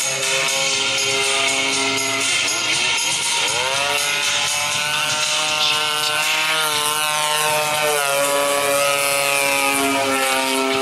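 Engine and propeller of a radio-controlled aerobatic airplane running at speed. Its note drops and climbs back again about two to four seconds in, then wavers once more near the end.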